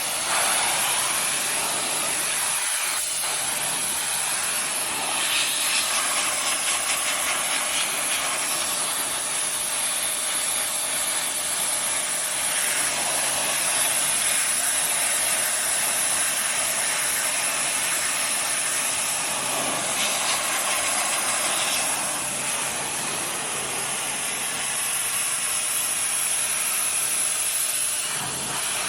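Pressure washer spraying water in a steady hiss, with only small swells in level.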